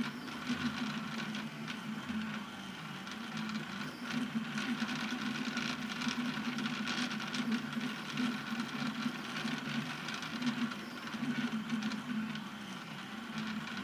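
Anycubic Kossel delta 3D printer, fitted with linear rails, running a print: a steady mechanical whir from its motors, with tones that shift in strength as the carriages move, and faint ticks.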